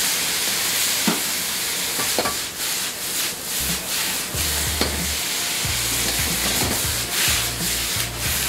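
Beef stir fry sizzling in a hot wok as the sauce goes in and it is stirred, a steady hiss broken by repeated short scrapes and knocks of the spatula on the pan.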